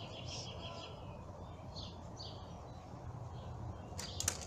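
Birds chirping, with short high chirps and a quick trill about half a second in, over a low background rumble. A few sharp clicks near the end.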